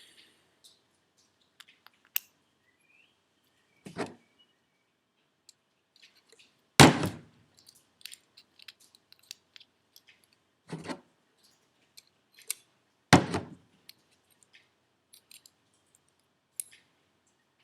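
Small metal turbocharger parts being handled and fitted by hand: scattered light clicks and taps, with four louder knocks, the loudest about seven and thirteen seconds in.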